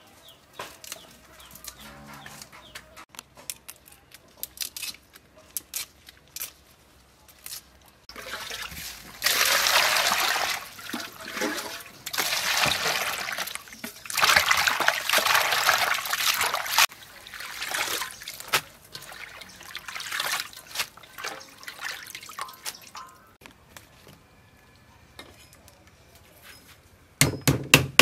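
Hands swishing and rubbing leafy greens in a bowl of water, in several loud sloshing spells, after a stretch of small snaps and rustles as the stems are picked. Near the end, a quick run of sharp knife chops on a wooden chopping board, the loudest sound.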